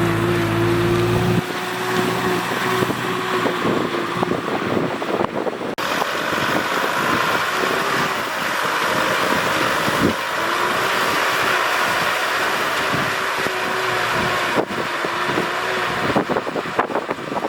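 Tractor engine running steadily under load; the sound changes abruptly about a second and a half in, as the deep engine drone drops away, leaving a higher wavering engine note with rattling.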